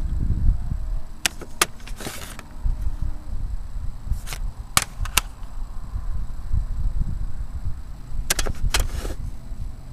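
Low rumble of a handheld camera being moved, with sharp clicks and knocks coming in three small clusters, two or three at a time.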